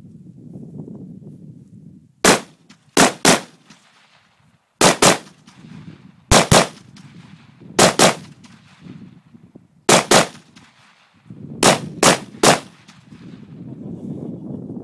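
Lightweight AR-pattern rifle firing about fourteen shots, mostly in quick pairs and a triple, each a sharp report with a short echo.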